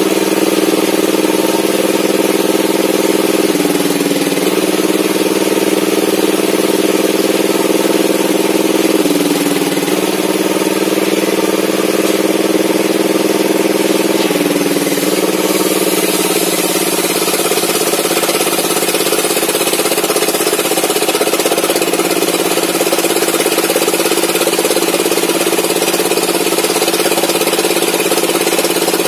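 Engine-driven circular saw on a homemade sawmill table running while an old mahogany beam is fed through the blade. The engine's steady note sags briefly three times in the first half as the blade takes load. From about halfway on, a brighter cutting hiss joins it.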